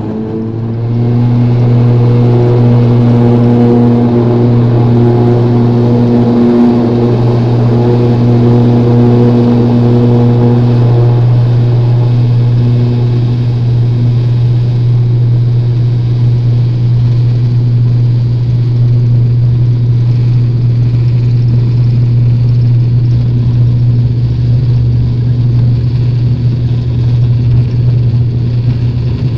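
Wings Air ATR 72's turboprop engine and six-blade propeller coming up to takeoff power, heard from the cabin: a loud, steady propeller drone that swells about a second in and then holds through the takeoff roll.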